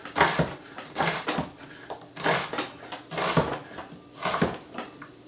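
Kitchen knife chopping an onion on a cutting board: sharp knocks in uneven pairs, about one pair a second.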